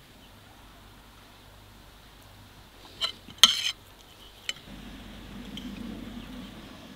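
Metal cutlery clinking against an earthenware plate: a sharp clink about three seconds in, a short loud clatter just after, and one more clink a second later. A low rumble follows over the last couple of seconds.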